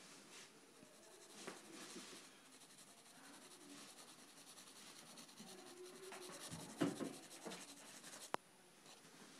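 Graphite pencil scratching softly on paper while shading, in faint strokes. A brief louder noise comes about seven seconds in, and a short click just before the end.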